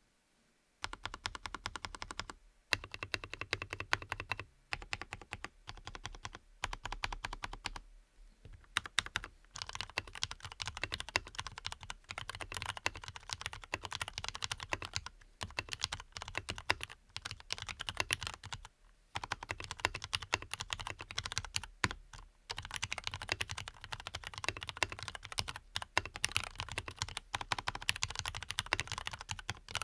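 Leopold FC660MBT mechanical keyboard with lubed, filmed Cherry MX Black linear switches being typed on quickly. Keys are pressed in a dense, steady stream that starts about a second in, with a few brief pauses.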